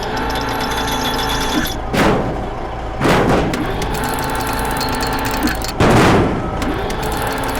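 A cartoon construction vehicle's engine running with a steady hum, broken by three sudden loud noisy bursts: one about two seconds in, one about three seconds in, and a longer one about six seconds in.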